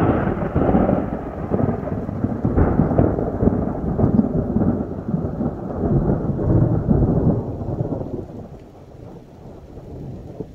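Close thunder: a sudden crack right at the start, then a loud rumble that goes on for about eight seconds, swells again a little over two seconds in, and dies away near the end.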